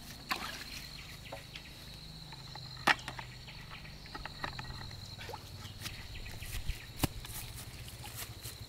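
A steady high-pitched insect drone over a low hum, with scattered clicks and knocks; the sharpest knocks come about three seconds in and about seven seconds in.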